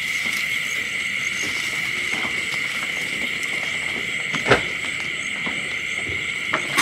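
Steady, high-pitched chorus of night insects, with one sharp click about two-thirds of the way in.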